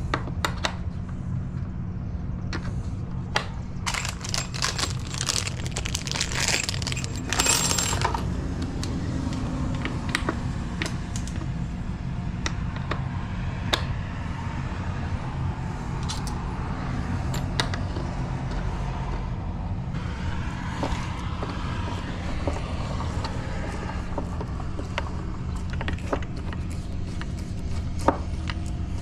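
Keys and small metal hardware clicking and clinking as they are handled, thickest about four to eight seconds in, over a steady low rumble.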